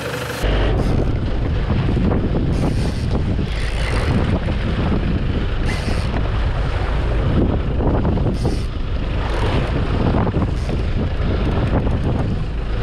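Heavy wind buffeting the microphone over the low rumble of the boat and water rushing along the hull, starting abruptly about half a second in, with brief hissing surges of spray every second or two.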